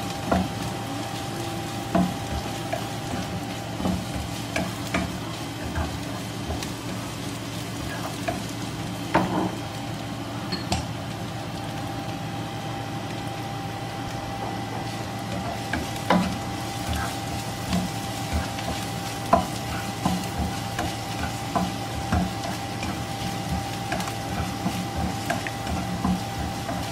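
Julienned ginger and garlic frying in oil in a nonstick wok, sizzling steadily while a plastic spatula stirs and scrapes around the pan, with scattered taps and knocks of the spatula against the pan. A faint steady hum runs underneath.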